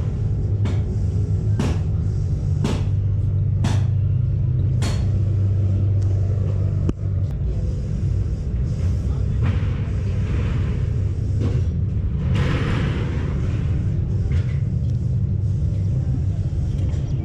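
A steady low rumble with sharp knocks about once a second during the first five seconds, then two short stretches of hissing or scraping.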